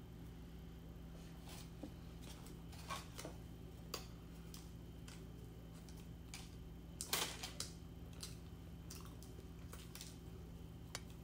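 Eating sounds: scattered short clicks and crackles of chewing and of a raisin scone being pulled apart by hand, the loudest cluster about seven seconds in, over a steady low hum.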